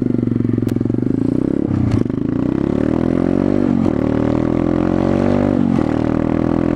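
Pit bike's small single-cylinder four-stroke engine accelerating up through the gears: the engine note climbs, drops sharply at three upshifts about two, four and six seconds in, and climbs again after each.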